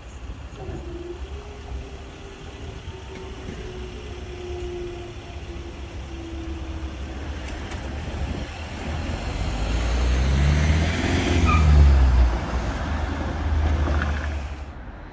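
Level-crossing barriers rising with a steady motor hum for the first several seconds, then road traffic driving over the crossing. Cars and a light flatbed truck pass close by, growing louder to a peak about twelve seconds in.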